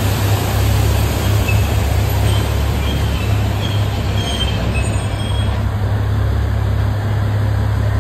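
Narrow-gauge diesel locomotive of the Matheran hill railway running as it moves along the platform: a steady deep rumble.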